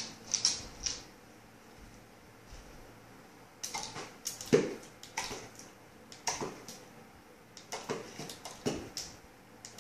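A hand spray bottle squirted in a string of short spritzes, with the dog licking and snapping at the water. The spritzes pause for about two seconds early on, then start again.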